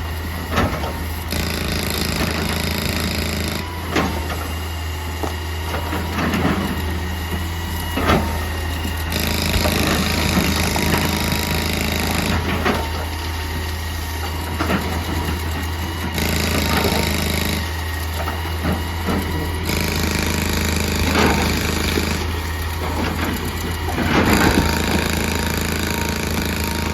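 Excavator's diesel engine running steadily under load, with irregular sharp knocks from rock being broken.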